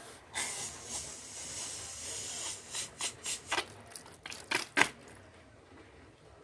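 Slime being squeezed and stretched by hand: a soft hissing rustle for about two seconds, then a quick run of sharp, sticky clicks and pops that stops about five seconds in.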